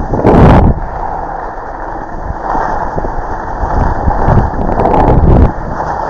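Wind buffeting the microphone of a body-mounted camera while skiing downhill, over the hiss of skis sliding on snow. The rush comes in gusts: a loud one just after the start and more swelling near the end.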